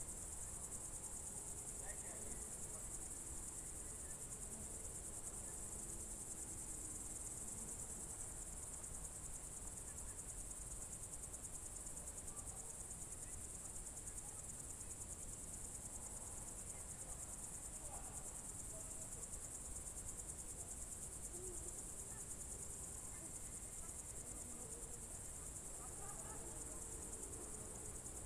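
Crickets chirring in a continuous, steady, high-pitched chorus.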